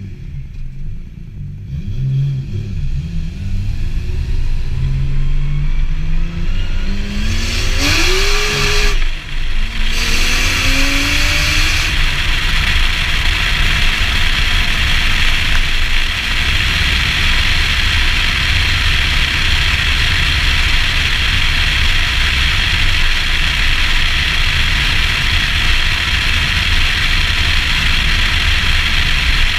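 Nissan Skyline R34's straight-six engine pulling away from a stop, its pitch rising as it revs up, with a brief drop at a gear change about nine seconds in and a second rise after it. From about twelve seconds on, steady wind and road noise on the outside-mounted camera covers the engine at cruising speed.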